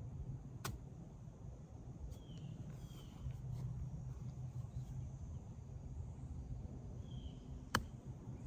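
Golf wedge striking the ball on a short pitch shot: one sharp click just under a second in. A second, louder sharp click comes near the end, and a few short bird chirps sound in between over a faint low outdoor rumble.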